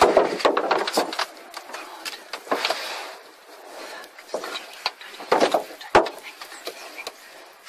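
Irregular rubbing and creaking with a few sharp knocks, as an elephant's hide brushes and bumps against the side of the car.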